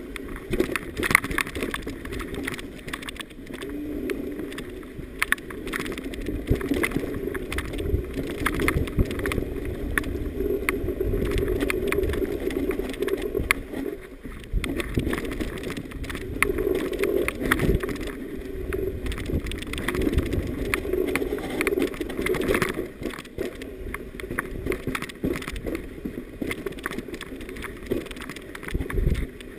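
Mountain bike descending a rough, bumpy dirt trail at speed: a steady stream of rattles and knocks from the frame, chain and components over roots and bumps, with tyres rolling on dirt and leaves and wind rumbling on the camera microphone.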